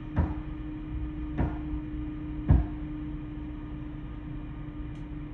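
Steady low rumble and hum of drilling machinery, with three short thumps about a second apart, the last the loudest.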